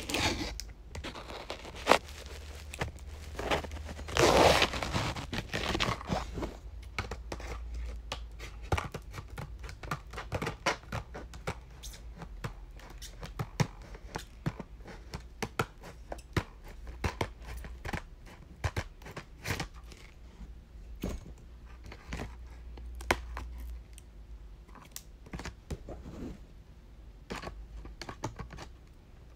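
Packaging being torn open and crinkled by hand, with many small clicks and taps throughout and a loud tearing rustle about four seconds in.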